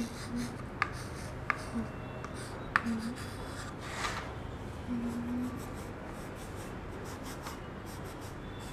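Chalk writing on a small chalk slate, with three sharp taps of the chalk in the first three seconds, then a cloth rubbed across the slate to wipe it.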